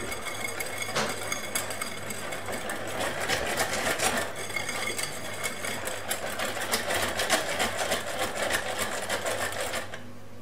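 Wire whisk beating cake batter fast in a glass bowl: a quick, steady, rhythmic clatter of the wires against the glass that stops near the end.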